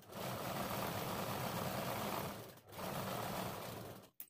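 Sewing machine stitching a folded quarter-inch hem straight along a blouse sleeve's edge, in two steady runs with a brief pause about two and a half seconds in; it stops just before the end.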